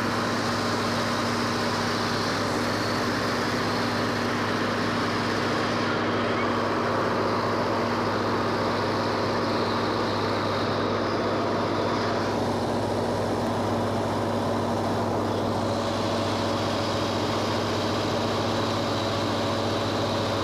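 Steady engine drone heard from inside a moving vehicle, a constant low hum with hiss over it, unchanging in level.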